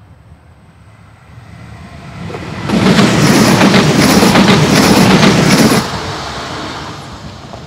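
A passenger multiple-unit train passes over the level crossing. It builds up over about two seconds and is loud for about three seconds, with wheels clacking over the rail joints, then fades away.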